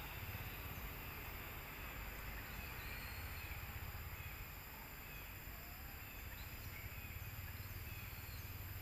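Quiet outdoor ambience: a steady low rumble with an even hiss, and a few faint, short high chirps scattered through it.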